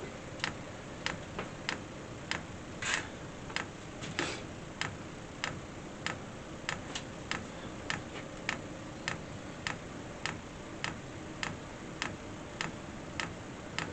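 Fuel dosing pump of a diesel air heater ticking in an even rhythm, about one and a half clicks a second, as the heater starts up, over a faint steady hum.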